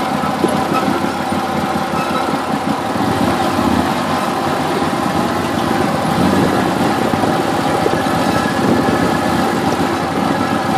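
Can-Am Maverick side-by-side's engine running steadily while engine braking in four-wheel-drive low range, holding the machine back on a steep downhill.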